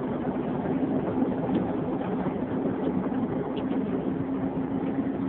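Tour coach driving along, heard from inside the cabin: a steady engine drone with a constant low hum and road noise.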